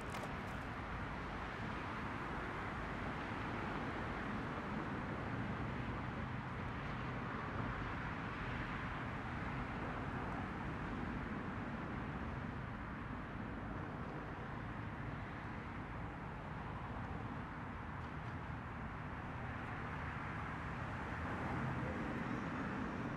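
Steady outdoor city ambience, mostly a low hum of distant traffic.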